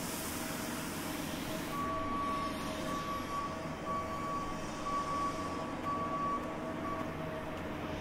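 Vehicle backup alarm beeping at a steady pace, about one beep a second, starting about two seconds in and stopping shortly before the end.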